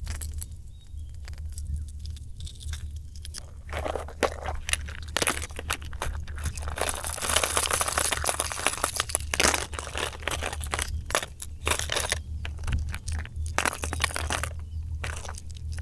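Hard plastic lures being picked through in an open plastic lure box: irregular clicking, rattling and rustling, sparse at first and busiest in the middle.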